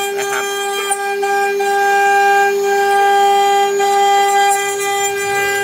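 CNC router spindle running with a steady high-pitched whine as it carves tamarind heartwood.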